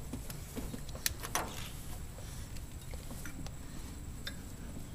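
Hand tools clicking and scraping on the metal fittings and lines of a truck's power steering hose as it is worked loose, over a steady low shop hum; one sharper click about a second in, followed by a short scrape.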